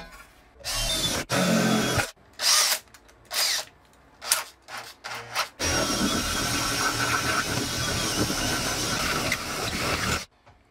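Cordless drill with a step bit cutting a hole through a thin aluminium cover: several short bursts, then a steady run of about four and a half seconds that stops suddenly.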